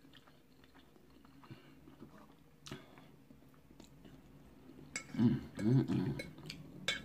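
A person chewing a mouthful of food with soft wet mouth sounds, with one sharp click about three seconds in. About five seconds in comes a short voiced sound from the eater, the loudest thing heard.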